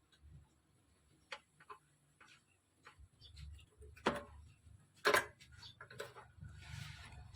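Scattered light clicks and taps of tools or parts being handled, with two louder knocks about four and five seconds in and a short hiss near the end.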